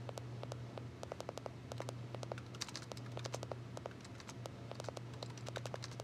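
Typing on a compact computer keyboard: a quick, irregular run of keystroke clicks, over a low steady hum.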